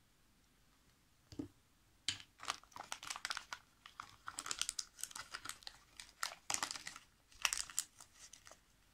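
Thin plastic toy packaging crinkling and crackling as fingers handle and open it, after a single knock about a second and a half in.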